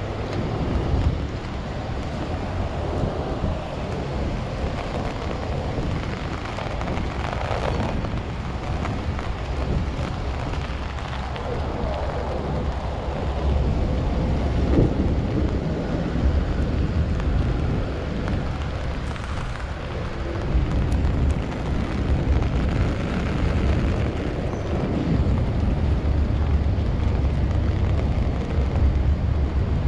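Steady low rumble of wind buffeting a body-worn action camera's microphone, over rain and city street noise.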